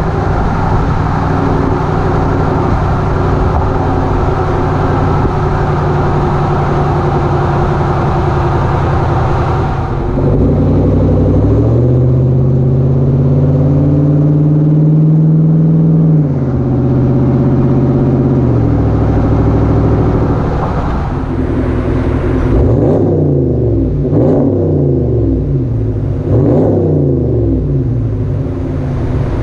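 Exhaust of a 5.7-litre Hemi V8 with its mid muffler and resonators deleted, heard at the tailgate while the truck drives. The note runs steady at first. About eleven seconds in it climbs as the truck accelerates, drops back at gear shifts around sixteen and eighteen seconds, and in the last several seconds its pitch wavers up and down repeatedly.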